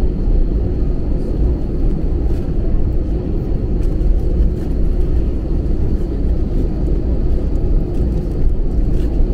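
Cabin noise inside an Airbus A321 taxiing: a steady low rumble from the engines at taxi power and the aircraft rolling on the taxiway, with a faint steady high whine above it.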